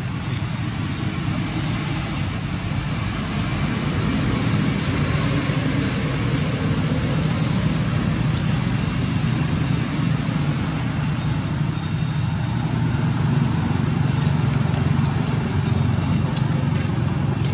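A steady low rumbling noise with a hiss above it and a few faint ticks, slightly louder in the second half.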